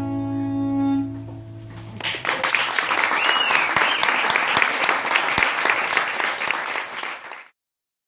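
Two electric guitars let a final chord ring out through their amps and die away. From about two seconds in, a small audience claps, with one short cheer rising and falling. The applause cuts off suddenly near the end.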